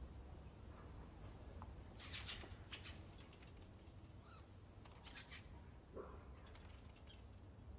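Near silence: a faint low hum with a few soft, brief clicks and rustles, the clearest about two seconds in and again around five seconds in.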